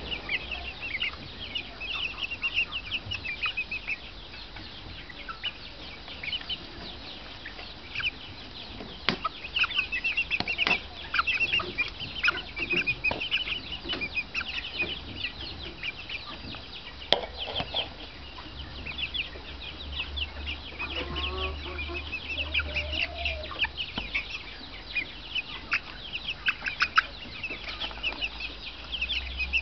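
A flock of young Silkie chickens peeping continuously in short, high-pitched chirps, with a lower call rising and falling briefly about two-thirds of the way through and an occasional sharp click.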